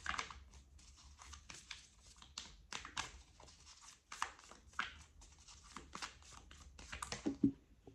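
A deck of tarot cards being shuffled by hand: irregular papery rustles and flicks of card against card.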